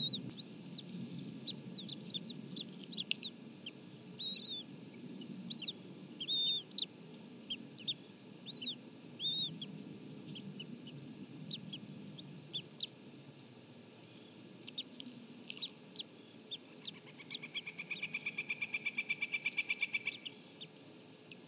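Bald eagle nest sounds: a young eaglet's short, high chirps, many in a row through the first half while it is being fed. Near the end comes a rapid run of high piping notes, about ten a second, growing louder for about three seconds, typical of an adult bald eagle's chattering call, over a low rumble.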